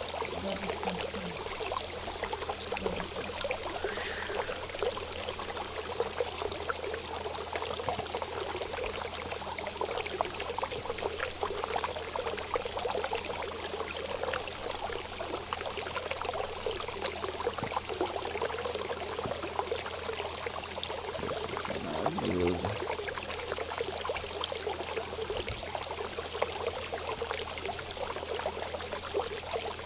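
Steady running, trickling water with an unbroken flow, over a low steady hum; a brief low sliding sound comes about two-thirds of the way through.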